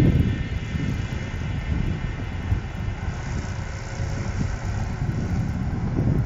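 Diesel engine of a loaded timber truck running as the truck creeps slowly forward, with a steady low rumble.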